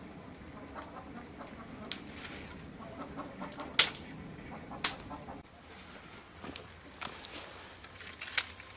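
Hens clucking in the background, with a few sharp clicks. Near the end, dry brushwood twigs crackle as they are gathered up by hand.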